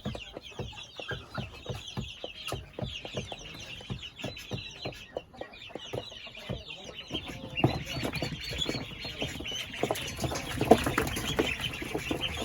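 Chickens clucking and squawking with bursts of wing flapping as frightened hens are chased with a net, over a constant chorus of high chirping from many birds. The commotion grows louder in the second half.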